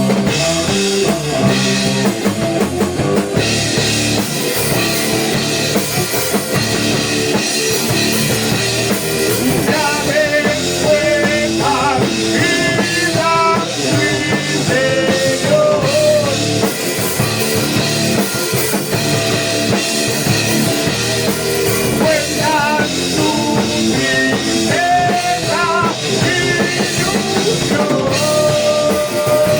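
Rock band playing at a rehearsal: electric guitars, bass and a drum kit, with a bending melody line coming in about ten seconds in.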